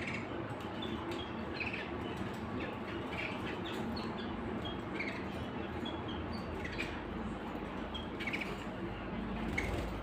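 Several caged domestic canaries giving short, scattered chirps and calls.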